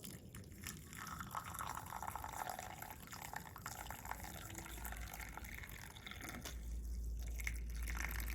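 Hot kahwa tea pouring from the pan into a cup, a splashing trickle that ends about six seconds in, followed by a low hum.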